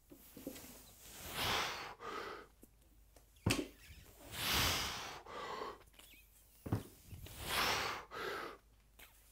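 A man breathing hard through heavy barbell deadlifts, with a loud exhale and inhale on each rep, about every three seconds. Twice the bumper plates knock against the floor as the bar comes down, the first knock the loudest sound.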